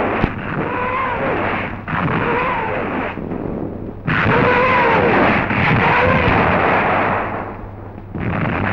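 Cartoon explosion sound effects on an old film soundtrack: loud, noisy blasts in four long stretches with brief dips between, and a whistling tone sliding up and down over them.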